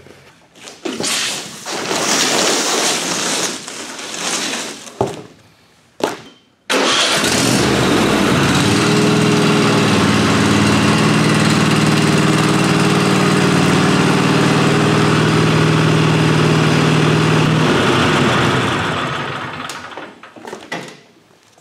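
Cardboard rustling as it is handled. Then the Kohler engine of a Craftsman T240 lawn tractor cuts in sharply and runs steadily for about ten seconds before dying away.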